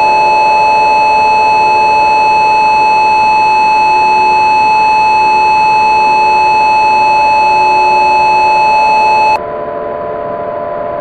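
A loud, steady electronic alert tone, a single unchanging pitch, held for about nine seconds and cutting off abruptly near the end. Underneath it, and continuing after it stops, is a quieter drone of several steady lower tones.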